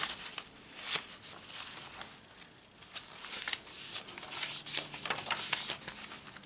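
Pages of a handmade paper junk journal being turned and handled: scattered dry paper rustles and light flaps, with a sharper one about a second in and more in the second half.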